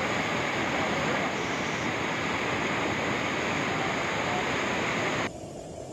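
Loud, steady rushing of a brown floodwater torrent surging down a walled river channel under a bridge. About five seconds in it cuts off abruptly, giving way to a quieter, duller rushing.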